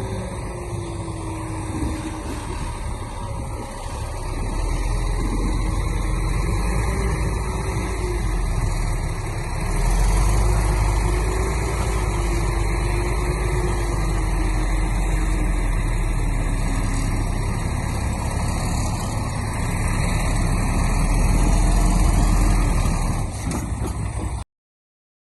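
Heavy diesel earthmoving machinery working, its engine running under load with a deep rumble that swells louder about ten seconds in and again a few seconds before the end, with a faint wavering whine over it. The sound cuts off abruptly to silence near the end.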